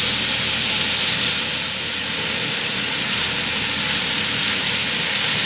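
Small pieces of chicken thigh sizzling steadily as they fry in hot avocado oil with onions and garlic in a pan, browning.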